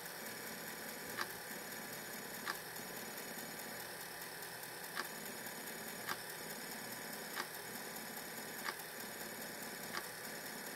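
5.25-inch floppy disk drive reading a bare floppy disk that has been cut out of its jacket: a quiet, steady motor hum with a short sharp click about every second and a quarter as the read head steps from track to track while the whole disk is copied.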